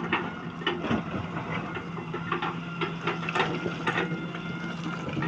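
Heavy construction machine's engine running steadily, with irregular knocks and clanks from the machine at work.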